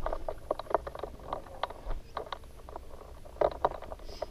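Wind rumbling on the microphone, with irregular short rustles and flaps.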